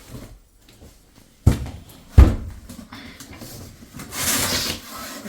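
Two thumps about a second and a half and two seconds in, the second louder, then a short rustling scrape, as the boxed microwave is set down and handled in its cardboard packaging.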